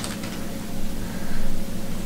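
Steady low background hum with soft rustling as a foil trading card pack and its cards are handled.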